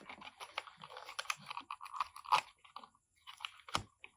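Plastic action figure and its plastic rig being handled and pushed together: a run of small clicks, creaks and scrapes, with sharper clicks a little past the middle and again near the end.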